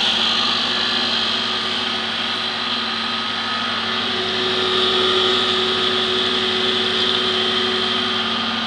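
Electric chili grinding machine running steadily while grinding fresh chili into paste: a constant motor hum with a high whine over it.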